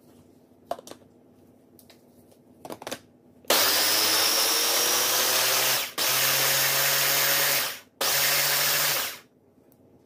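Electric blender running in three bursts with short stops between, puréeing peaches with condensed milk. A few light clicks come before it starts.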